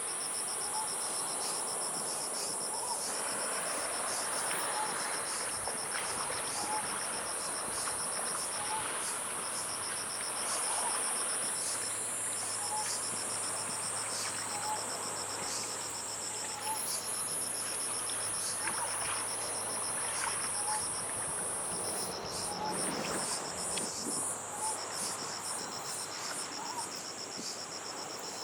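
Coastal night-insect chorus: a steady high buzz with crickets chirping in fast, even pulses, which change pitch and rhythm about two-thirds of the way through. Under it is a soft rush of surf that swells now and then, and a short faint call repeats about once a second.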